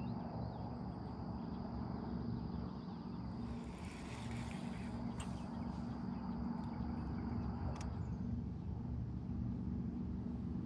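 Steady low hum of a boat motor, with a thin, steady insect buzz above it. About four seconds in, a brief hiss passes, followed by a couple of sharp clicks.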